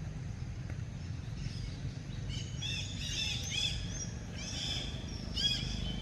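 A series of short, high, arching chirps, starting about two seconds in and repeating over a steady low rumble.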